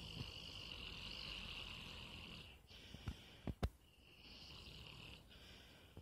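A sleeping dog snoring: two long, high-pitched snores, with a pause of about a second between them in which come two sharp clicks.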